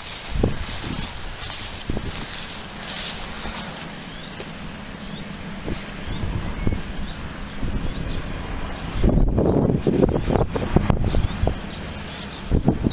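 An insect chirping outdoors in an even rhythm, about three short high chirps a second. From about nine seconds in, louder rustling and knocking noise joins it.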